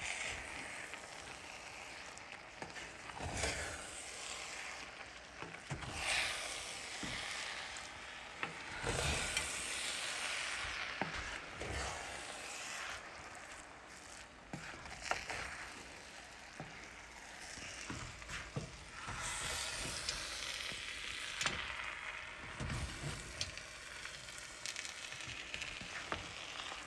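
Cooked jambalaya rice being stirred and fluffed in a pot with a utensil, with irregular scraping strokes every few seconds over a low sizzle from the rice still on the heat.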